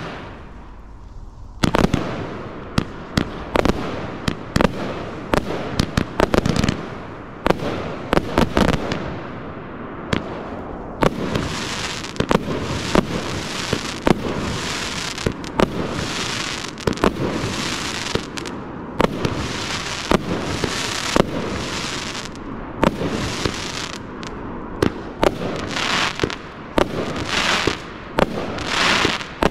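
An 80-shot, 25mm consumer firework barrage cake firing a long, rapid, irregular run of sharp bangs as its shots launch and break. It starts after a short lull, and from about a third of the way in a constant wash of noise fills the gaps between the bangs.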